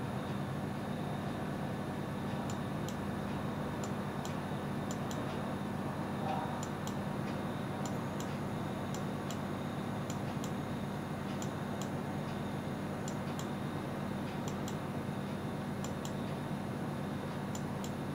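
A steady low hum under a hiss, with faint, irregular ticks scattered through it.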